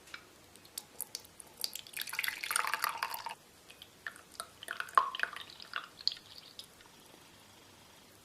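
Boiled milk with chopped onion being strained into a glass: a short pour about two seconds in, then drips and small clinks of the strainer and glass.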